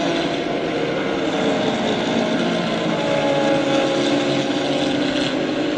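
Racing touring car engines running hard, several at once, their overlapping tones sliding slowly in pitch.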